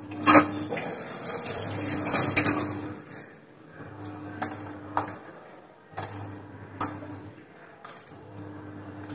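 A knife and a steel plate clinking as brinjal is cut over a plate of chopped vegetables: a loud clatter just after the start, a cluster of clinks around two seconds in, then single clicks about once a second.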